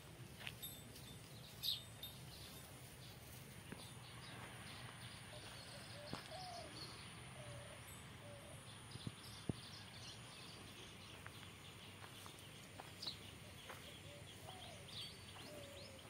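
Faint outdoor ambience with scattered short bird calls and a few light clicks over a low steady background hum.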